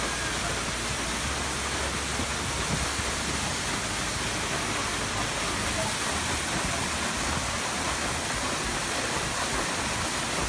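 An 80-foot waterfall rushing steadily: an even, unbroken wash of falling water.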